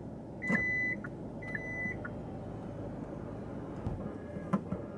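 Car's electronic warning chime beeping twice, each beep about half a second long and a second apart, over a low steady hum in the cabin.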